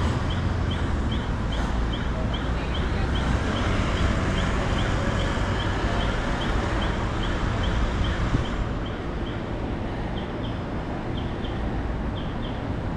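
Wind rushing on the microphone and street traffic noise during a city bicycle ride, steady throughout. A regular high chirping repeats about three times a second, growing sparse and irregular after about eight seconds.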